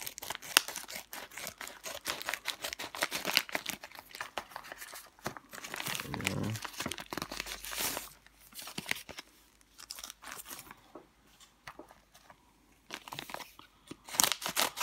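Scissors snipping through a plastic mailing bag, and the plastic and paper packaging crinkling and rustling as it is handled, with a dense run of sharp cuts near the end.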